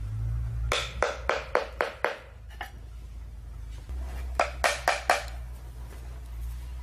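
A quick run of about seven sharp, hard knocks lasting about a second and a half, then after a pause four more in quick succession, over a steady low hum.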